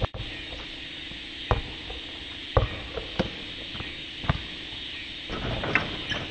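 Basketball dribbled on asphalt: a handful of sharp single bounces about a second apart, then scuffing footsteps near the end as the player runs in and jumps.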